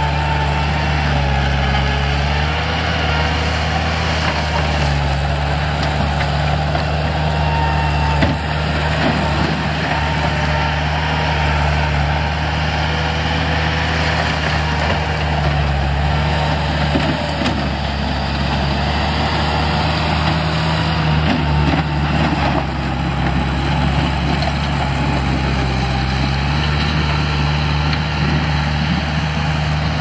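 Bobcat 864 track skid steer's 73 hp diesel engine running steadily while the machine digs into a dirt pile and drives off, its engine note shifting up and down several times as it works.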